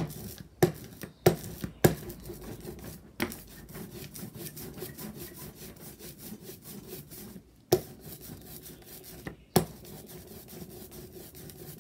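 Hand brayer rolled back and forth over an aluminium-foil litho plate loaded with tacky oil-based ink, making a continuous sticky, crackling rub. Several sharp clicks stand out, most of them in the first three seconds and two more later on.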